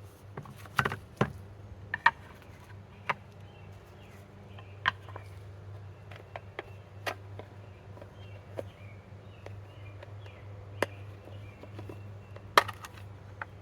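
Irregular sharp knocks and clicks of sharpening stones and their boxes being handled and set down on a wooden workbench, over a steady low hum and faint bird chirps.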